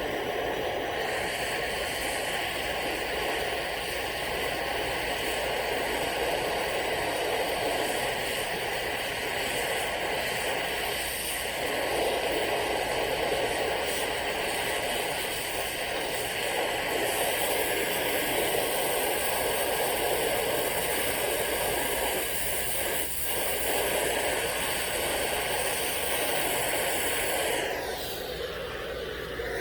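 Oxyacetylene torch flame burning with a steady rushing hiss while joints are brazed. Near the end a whistle glides steeply down in pitch and the sound dips briefly.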